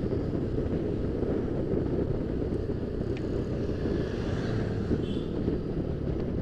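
Yamaha Aerox scooter running steadily under way, with wind rumbling on the microphone.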